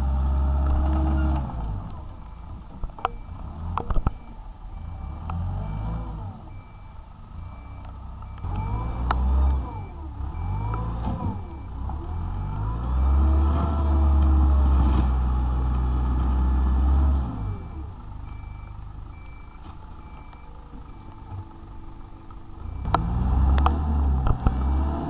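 Wheeled excavator's diesel engine revving up and dropping back several times under load in mud, loudest near the start, around 9 s, from about 13 to 17 s and near the end. A reversing alarm beeps at an even pace through much of it, with a few sharp metallic clanks.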